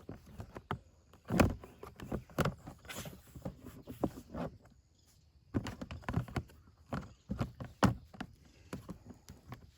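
Compost tumbler panels being handled and pressed into place: a run of irregular knocks and clunks, with a brief lull about halfway through.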